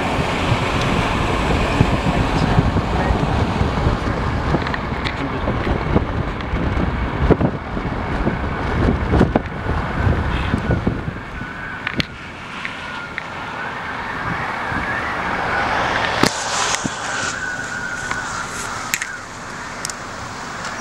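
Strong, gusty storm wind buffeting the microphone. After about ten seconds the wind eases and road traffic passes, with a distant siren wailing as a faint wavering tone for several seconds.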